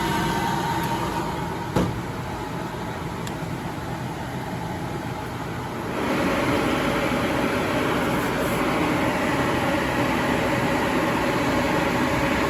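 Kyungdong Navien agricultural dryer running with a steady machine noise, a single click about two seconds in, and the noise growing louder about six seconds in.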